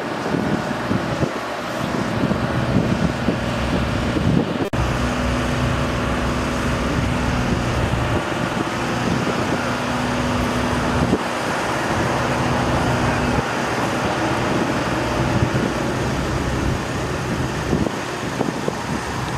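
Road traffic and vehicle engine noise, with a steady low engine hum most of the way through and a single sharp click near the five-second mark.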